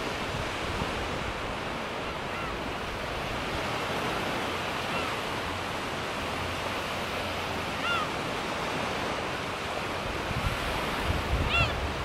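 Low surf washing onto a sandy beach, with gulls giving short high calls four times, spaced a few seconds apart; the last call, near the end, is the loudest. Wind rumbles on the microphone toward the end.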